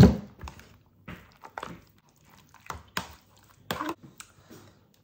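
Kitchen handling noises: a sharp knock at the start, then scattered short clicks and knocks of dishes, containers and utensils being handled while food is plated up.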